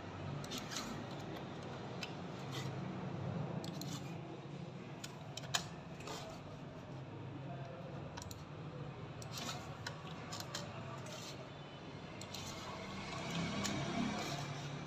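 Scattered clicks of a computer mouse and keyboard as values are entered in print software, one click sharper than the rest about five and a half seconds in, over a low steady hum.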